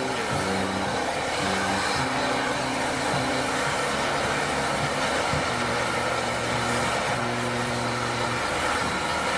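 Steam hissing steadily from Battle of Britain class steam locomotive 34053, with drain-cock steam at its cylinders as it eases forward. Behind it a brass band plays a tune of held, stepped notes.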